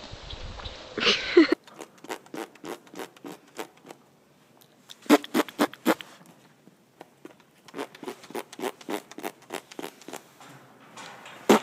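Horse flapping and smacking its lips, a rapid series of short wet clicks and pops coming in bursts. The first second and a half is a different clip with a noisier sound.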